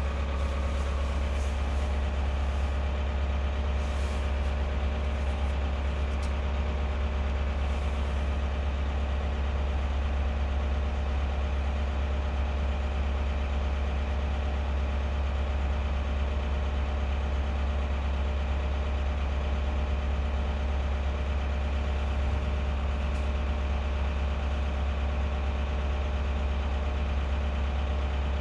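Engine idling steadily: a deep, even hum that does not change.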